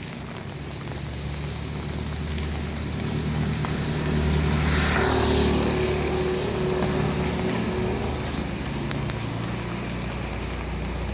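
A motor vehicle passing on a wet village road in the rain: its engine hum builds, is loudest about halfway through with a brief rush of noise as it goes by, then fades away, over the steady hiss of rain.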